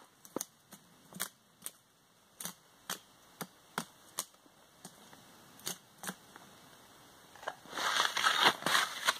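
A knife working at the base of a small black spruce, about a dozen sharp, irregular snaps and clicks of wood. Near the end, louder crunching and rustling as skis shuffle in the snow.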